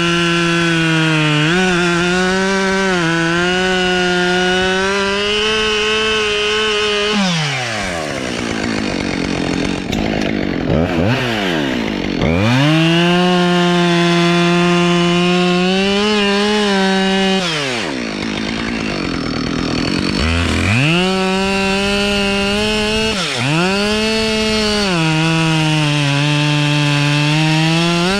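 Two-stroke chainsaw running at high revs while cutting wood. The engine note drops and climbs back twice, about seven and eighteen seconds in, as the throttle is let off and opened again, with a short dip near the end.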